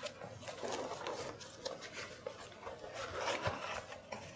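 Cardboard box handled and opened by hand: a run of rubbing and scraping with small taps as the box is turned over and its tuck-in lid is pulled open, loudest about three seconds in.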